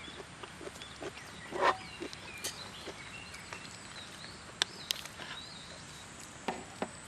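Outdoor ambience at a campsite: small birds chirping in short rising and falling calls, over scattered small clicks and knocks, with a louder knock about a second and a half in and two sharp clicks a little after the middle.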